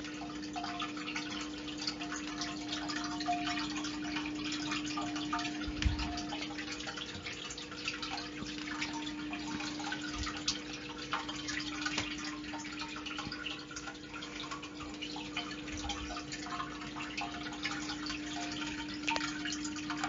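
Water dripping and trickling in many small irregular drops, over a steady low hum.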